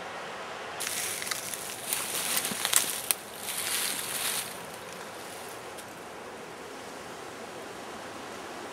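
A person moving through dry forest undergrowth: leaf litter and twigs crunch and rustle for about three and a half seconds, starting about a second in, with a few sharp cracks. A steady background hiss follows.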